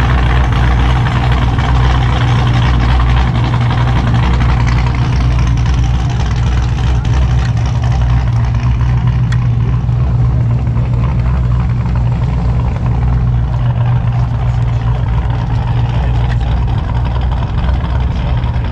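A car engine idling steadily, a continuous low hum with no change in speed.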